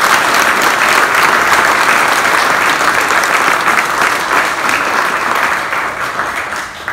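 Audience applauding: dense hand clapping that dies away near the end.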